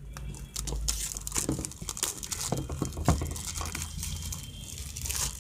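Clear plastic seal film being torn and peeled off a smartphone's cardboard box, with many small irregular crackles.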